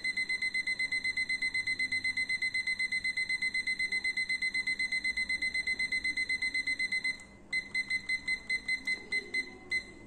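Digital kitchen timer beeping with a high pitched tone, about eight short beeps a second, as its minute button is held and the minute count runs up. A little after seven seconds in, the beeps turn slower and uneven.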